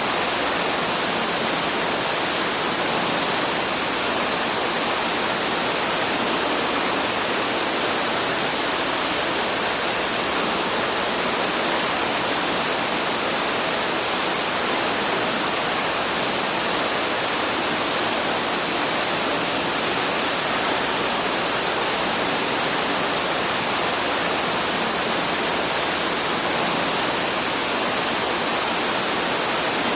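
Waterfall rushing: a steady, even roar of falling water with no birdsong standing out.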